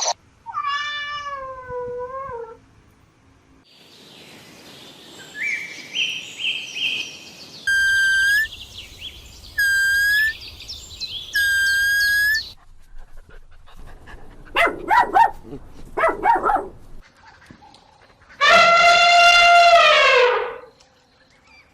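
A string of separate animal calls, one after another: a wavering call, a run of short repeated calls, three steady whistle-like notes, a few short calls, and one long loud call near the end.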